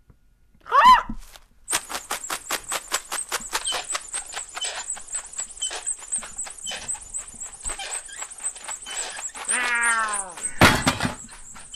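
Cartoon sound effects: a short chirpy warble, then a rapid run of high squeaks, about five a second, that goes on for several seconds. Near the end a falling squeal, then a loud thump.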